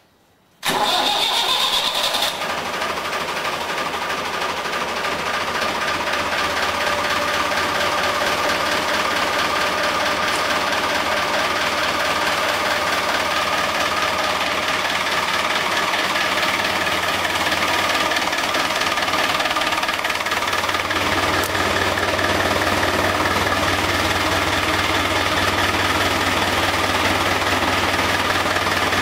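Case David Brown 995 tractor's three-cylinder diesel engine running steadily at idle. The sound comes in abruptly about half a second in, with a brief high whine over the first second or two, and turns deeper and fuller about two-thirds of the way through.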